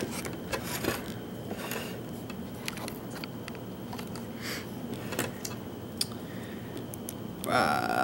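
Faint handling sounds from a small plastic lock-picking vise holding a padlock being turned and set in place: scattered light clicks and rubbing, with a short rustle near the end.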